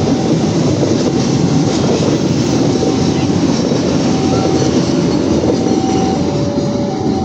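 A train running past with a loud, steady rumble of wheels and cars. Over it a two-tone warning alternates between a higher and a lower note, each held for under a second.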